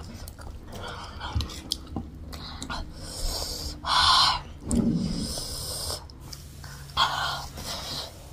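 A person breathing hard through a wide-open mouth, two strong breathy puffs about four seconds in and again near seven seconds, with a short voiced sound just after the first, amid small eating clicks: the sound of someone reacting to chilli heat while eating.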